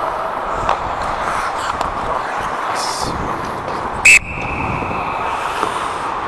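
Ice hockey referee's whistle blown once in a short sharp blast about four seconds in, its tone hanging on faintly in the rink for a second or so afterwards. Before and after it, steady rink noise.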